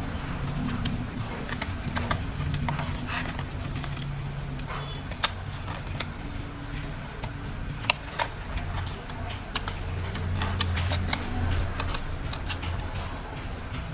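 Plastic toy train parts being handled and fitted together: irregular sharp clicks and clacks, loudest about five and eight seconds in, over a low steady hum.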